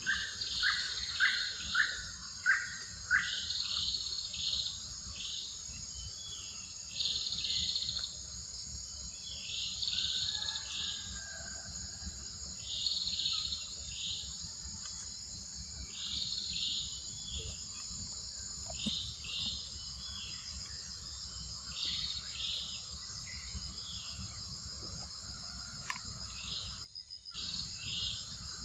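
Steady, high-pitched insect chorus with chirping bursts that repeat every two to three seconds. Near the start come five or six short, high calls in quick succession, the loudest sounds. The background cuts out briefly near the end.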